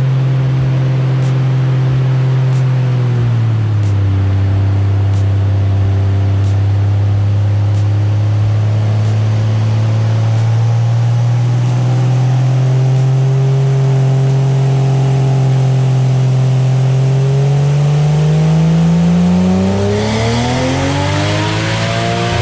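Turbocharged 1JZ inline-six in a Toyota Supra running under load: the revs drop about three and a half seconds in, hold steady, then climb slowly and rise sharply near the end, with a rising hiss as it revs.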